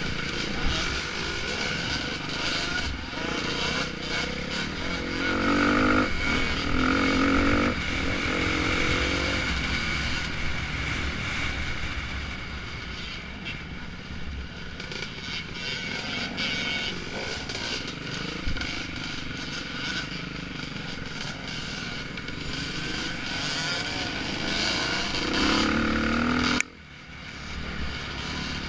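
Dirt bike engine heard from on board, running under load up a hill trail, with the revs rising louder twice and a sudden brief dip in level near the end.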